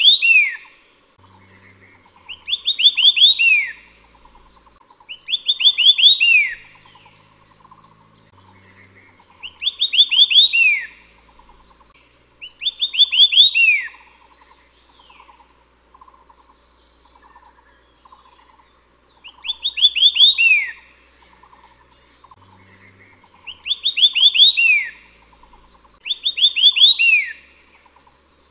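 White-eared Sibia singing. Each phrase is a quick run of about six rising notes ending in one falling note, about a second and a half long. The phrase is repeated eight times, every three to four seconds, with a longer pause about midway.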